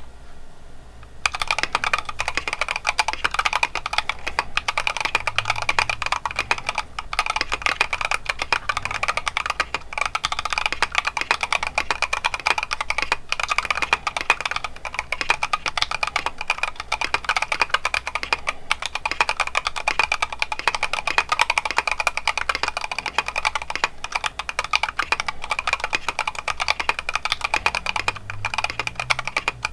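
Mechanical keyboard with Gateron CJ linear switches, a copper plate, a stacked acrylic case and KAT-profile keycaps, typed on continuously in fast, dense keystrokes. The typing starts about a second in.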